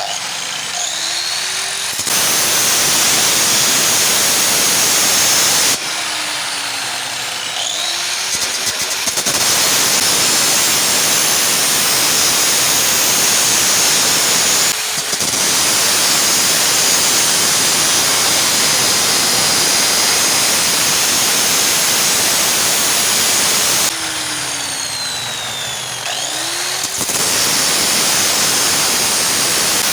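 Power tool cutting iron sheet, most likely an angle grinder with a cutting disc. It runs loudly in long cutting stretches. Three times it goes quieter for a few seconds while the motor's pitch swings up and down, then it bites into the sheet again.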